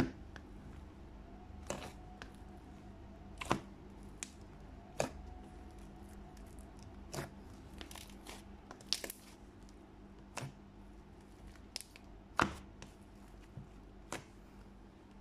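Fluffy slime being poked and squeezed by hand, giving about a dozen irregular sharp pops and crackles as air pockets in it burst, over a faint steady hum.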